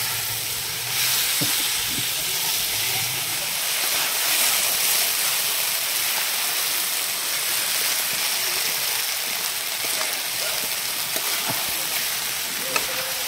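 Soaked basmati rice sizzling in hot oil and masala, a steady hiss with a few light clicks.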